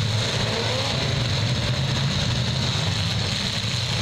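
Several demolition derby cars' engines running hard together in a steady low rumble, with one short rev about half a second in.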